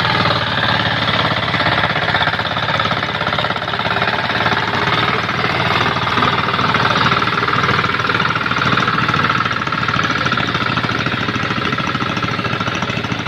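Two-wheel walking tractor's engine running steadily with a fast, even chugging as it plows through a flooded rice paddy.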